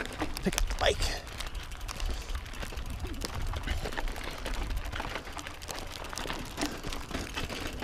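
Mountain bike rolling over a loose, rocky gravel trail: tyres crunching over stones with scattered irregular clicks and rattles, over a steady low wind rumble on the microphone.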